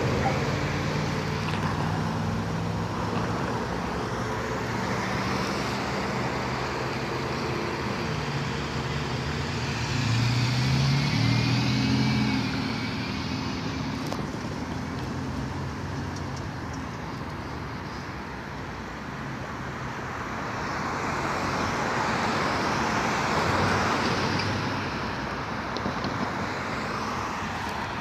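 Road traffic: cars driving past one after another on a multi-lane street, the sound swelling as a vehicle goes by about ten seconds in and again near the end.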